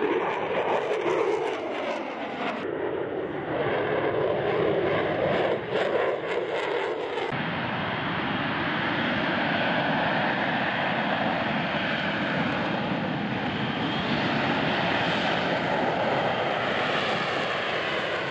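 F-35B Lightning II jet engine noise: first a fast pass with the pitch falling, then, after a cut about seven seconds in, a steady jet noise from the F-35B in slow hovering flight with its lift fan engaged.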